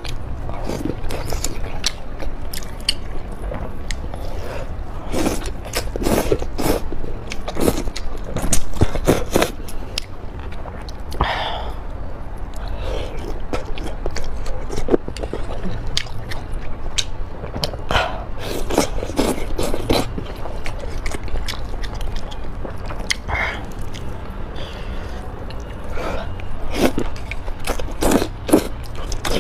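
Close-miked eating sounds of noodles and dumplings: irregular chewing and biting with many short, sharp wet mouth clicks, over a steady low hum.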